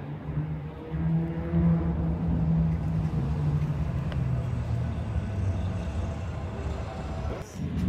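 A car engine running at low revs: a steady low drone that dips slightly in pitch about halfway through and fades out near the end.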